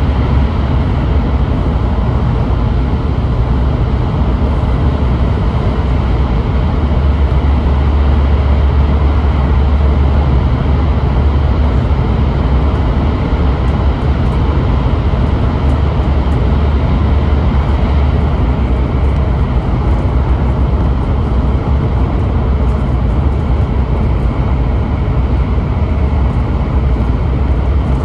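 Steady running noise inside the passenger cabin of an N700S Shinkansen train at speed: a loud, deep rumble under an even rush of noise, holding unchanged throughout.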